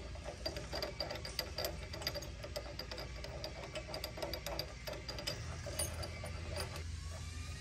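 Light metallic clicking and ticking from a trailer hitch ball being spun by hand to thread its nut and lock washer onto the shank under a steel hitch plate. The clicks come many times a second and are uneven.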